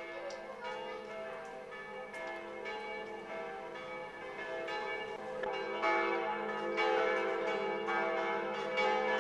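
Several church bells ringing together, overlapping strikes and a sustained hum of ringing tones, growing louder a little past halfway. The bells are ringing to call people to evening mass.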